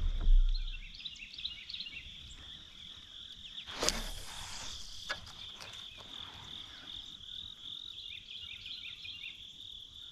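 Steady high-pitched drone of insects, with a brief sharp swish about four seconds in.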